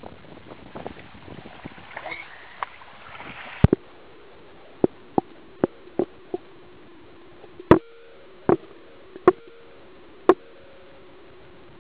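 Water sloshing and splashing for the first three and a half seconds, then the sound goes suddenly duller as the camera goes under water. About ten sharp, irregularly spaced knocks follow, each with a short ring, as the camera bumps against the stones.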